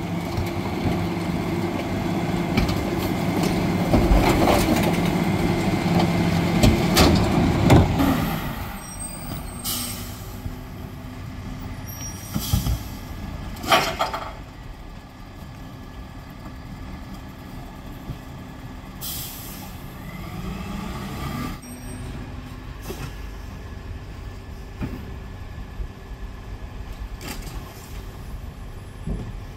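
Split rear-loader garbage truck working its packer: a loud, steady mechanical run for about the first eight seconds, then the truck settles to a quieter idle. Several short air-brake hisses follow as it stops and moves along its route.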